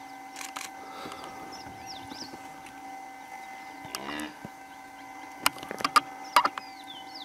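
Riverside ambience with a steady hum and small high bird chirps, a short low animal call about four seconds in, and a few sharp camera-shutter clicks near the end.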